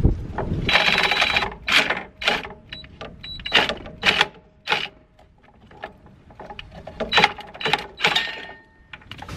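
DeWalt reciprocating saw cutting through PVC pipe in a run of short bursts, the motor whining each time the trigger is pulled, with a pause about halfway.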